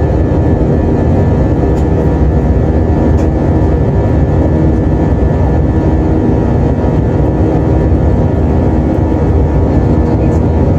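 Steady cabin noise of a twin-engine jet airliner in flight, heard inside the cabin: a loud, even rumble of engines and airflow, with a few faint steady hum tones over it.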